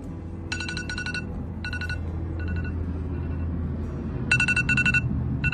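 Electronic phone ringtone trilling in several short bursts over background music with a steady low bass, loudest in a double trill near the end.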